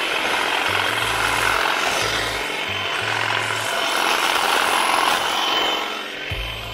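Parkside PHSA 20 Li A1 cordless 20 V hedge trimmer running, its blades cutting through a cherry laurel hedge.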